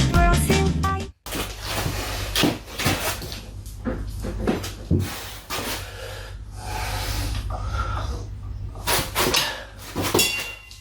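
Music cuts off suddenly about a second in. Then comes workshop handling noise: irregular knocks, clicks and clatters of tools and metal parts, over a steady low hum.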